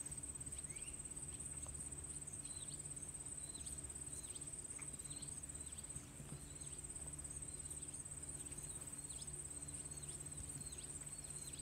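Insects trilling steadily in a high, unbroken buzz, with short repeated bird chirps over it and a low rumble underneath.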